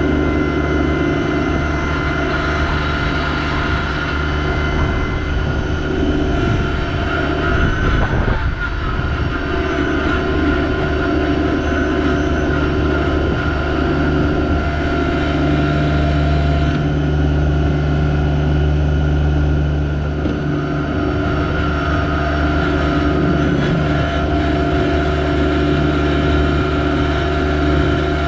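Yanmar SA324 compact tractor's three-cylinder diesel engine running steadily under load while clearing snow, with a short rough knock about eight seconds in.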